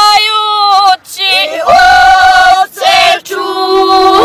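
Women's voices singing a traditional Serbian rural folk song (zavičajna pjesma) in long held notes, broken by short pauses between phrases.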